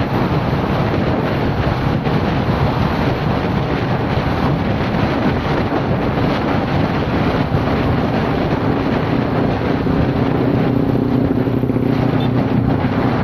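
Steady, loud wind noise buffeting the microphone over a continuous low rumble, with a faint steady hum coming in during the second half.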